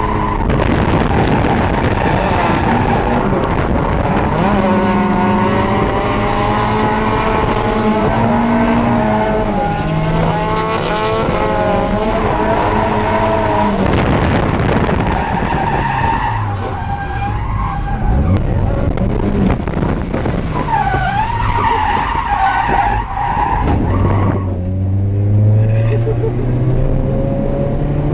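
Inside the cabin of a 1992 Eunos Roadster fitted with a 1.6-litre B6ZE four-cylinder, the engine revs up and down repeatedly through a drift while the tyres squeal and skid. Near the end the engine pulls steadily higher.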